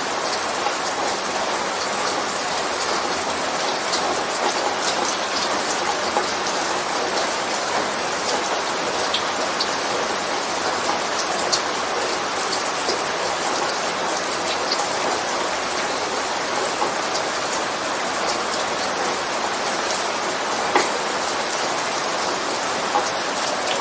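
Steady rain falling, a dense even hiss with many separate drops pattering on a surface.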